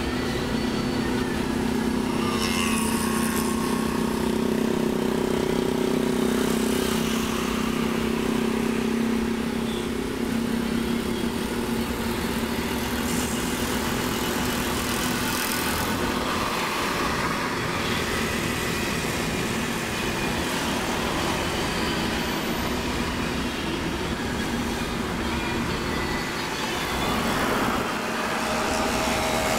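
Traffic noise heard from inside a moving car: the car's own engine and road noise, with other cars and motorcycles driving alongside.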